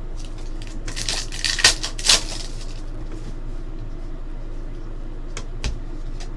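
Trading card packs and cards being handled: a stretch of rustling and crinkling wrapper and card noise, loudest about one to two seconds in, then two light clicks near the end, over a steady low hum.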